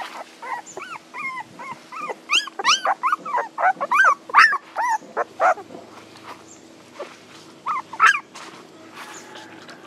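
Young puppies whimpering and crying for their mother: a run of short, high, rising-and-falling cries, several a second, busiest in the middle and fading out after about eight seconds.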